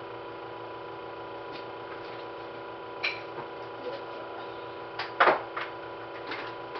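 A few short clicks and knocks from gear being handled, the loudest about five seconds in, over a steady faint electrical hum with a thin high tone.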